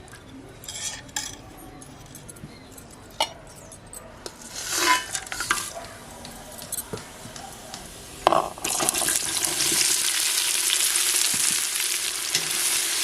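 Cooking oil in a pressure cooker, with small clinks and a brief crackle as whole spices go in. About eight seconds in, sliced onions drop into the hot oil and set off a loud, steady sizzle.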